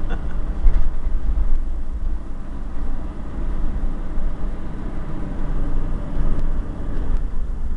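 Vehicle driving along, heard from inside the cab: a steady low rumble of engine and road noise.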